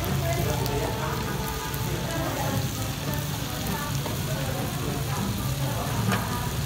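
Raw sliced beef and chicken sizzling on a hot grill plate lined with a non-stick grill sheet over a portable gas stove: a steady frying hiss.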